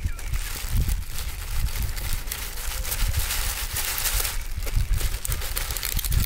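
Knife scraping the scales off a silver carp: a run of quick, scratchy rasping strokes, densest about three to four seconds in, with the plastic bags under the fish crinkling, over a low rumble.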